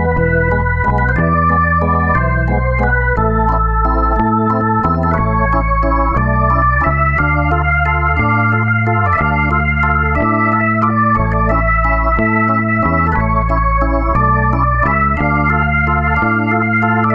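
Background music: an electronic organ-style keyboard tune of held notes over a bass line that changes note about once a second.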